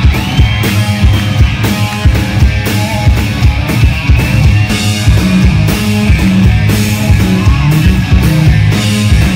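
Live rock band playing loud: a steady drum-kit beat with cymbals under electric bass and electric guitars.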